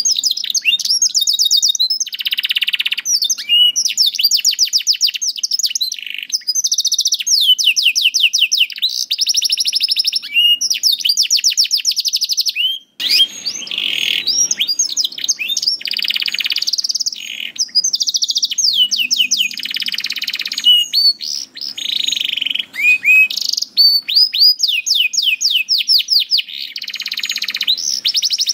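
Domestic canary singing a long, continuous song of rapid trills and fast repeated high notes, with a brief break about halfway through.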